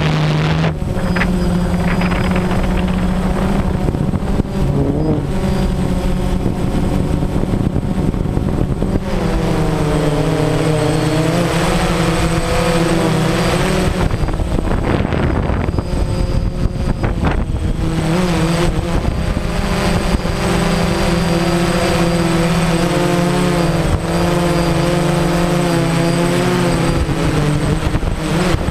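DJI Phantom quadcopter's motors and propellers buzzing in flight, heard from the camera on board; the pitch of the buzz shifts up and down several times as the motors change speed.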